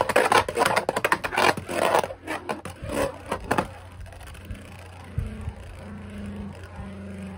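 A Beyblade Burst QuadStrike Ultimate Valtryek top spinning in a plastic stadium: rapid clicking and rattling as it skids across the bowl for the first three seconds or so, then a quieter steady whir as it settles and spins on the stadium floor.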